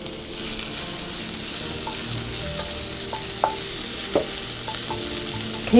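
Minced dried radish sizzling in hot oil in a frying pan, stirred and pushed about with a wooden spatula, with a couple of brief knocks about three and a half and four seconds in.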